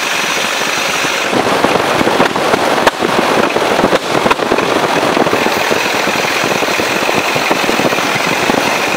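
1926 Ford Model T Speedster's stock four-cylinder engine pulling on the road, its exhaust a rapid, steady crackle of pops. It gets louder about a second and a half in, with a few sharper cracks around the middle.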